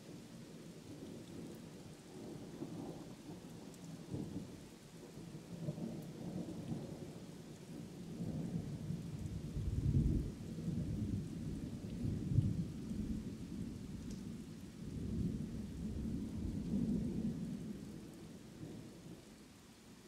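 Thunder rolling and rumbling over steady rain, swelling to its loudest about halfway through, with another loud peak a couple of seconds later, then dying away near the end.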